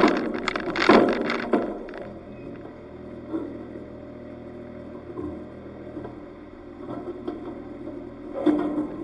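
A 4WD's engine running steadily at idle, heard from its roof rack, with loud noisy surges across the first second or two and again briefly near the end.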